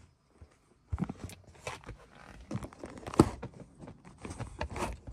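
Irregular rustling and knocks from someone shifting about on a leather car seat and handling the camera, starting about a second in.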